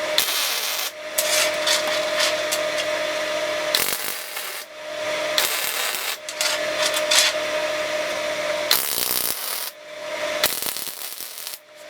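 Arc welder tack-welding steel bar stock, crackling in several separate stretches with short pauses between tacks.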